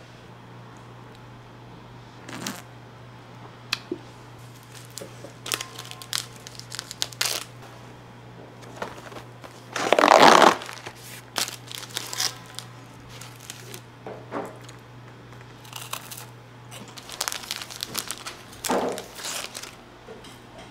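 Cardboard snack box and plastic wafer wrappers being handled: crinkling and tearing of packaging in short irregular rustles. The loudest, longest rustle comes about ten seconds in.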